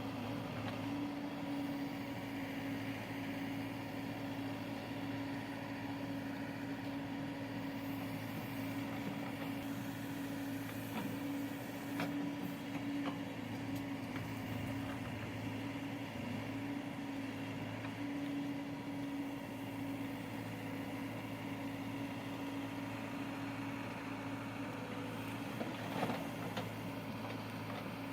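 A backhoe loader's diesel engine runs steadily at one even pitch, with a few short knocks about twelve seconds in and again near the end.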